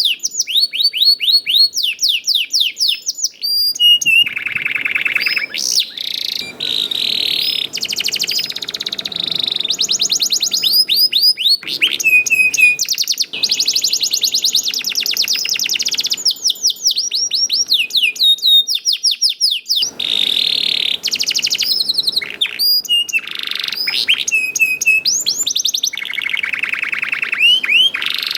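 Domestic canary singing without a break: quick runs of repeated downswept chirps, several a second, changing into buzzy trills and rolled phrases, then back to chirp runs.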